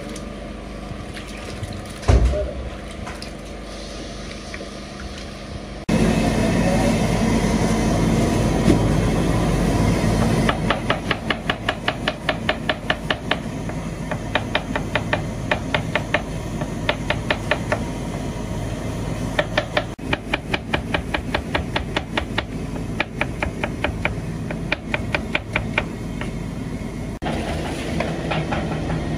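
A knife chopping peeled onions on a plastic cutting board in quick, even strokes, about three cuts a second, over steady kitchen noise. Before that, hands move meat about in a basin of water, with one sharp thump.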